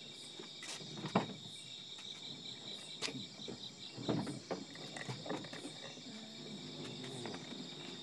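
Steady high-pitched chorus of night insects such as crickets, broken by a few short sharp knocks, the loudest about a second in.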